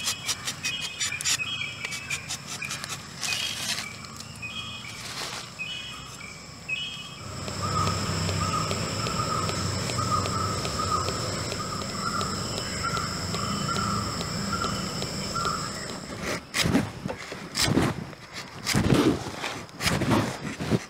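Outdoor ambience with birds calling in repeated short high chirps. After about seven seconds a steady high-pitched tone and a lower warbling call take over, and irregular rustles and knocks come in near the end.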